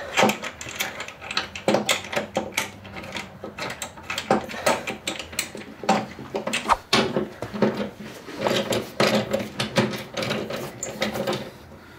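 Irregular clicks, clinks and knocks of hand tools and metal hardware being worked at a snowmobile rear skid's mount as a bolt is started by hand.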